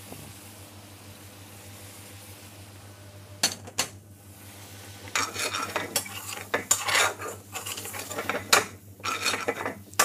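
Metal spoon scraping and clinking against a metal frying pan as thick curry sauce is stirred, in irregular strokes from about halfway through. It follows a couple of sharp knocks about three and a half seconds in.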